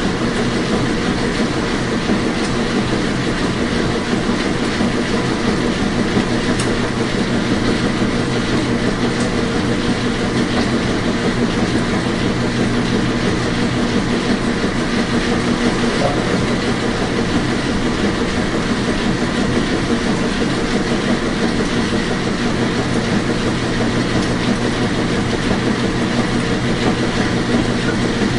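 Washing machine running with a steady, even noise and a constant hum, unchanging throughout.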